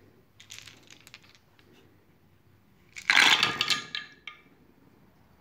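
A set of standard polyhedral dice rolled through a purpleheart wooden dice tower. A few light clicks, then about three seconds in a loud clatter of about a second, with a brief ringing tail, as the dice tumble down the tower and land in its tray.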